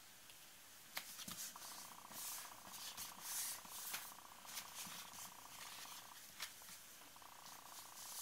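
Paper cardstock being pressed, smoothed and slid across a crafting mat: soft rubbing and rustling swishes, with a click about a second in. A faint steady buzz runs under the handling for most of the time.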